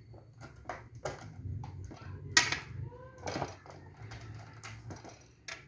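Small plastic toy pieces and packaging being handled, with irregular clicks and knocks; the loudest knock comes about two and a half seconds in.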